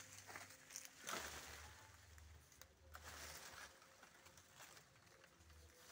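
Near silence: faint rustling of foliage and a couple of light knocks about a second in, from a long bamboo pole being worked up into a cacao tree.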